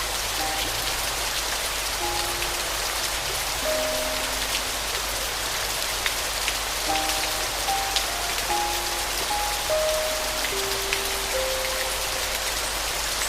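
Steady rain with scattered drop ticks, mixed with a soft piano playing sparse single notes, one or two at a time.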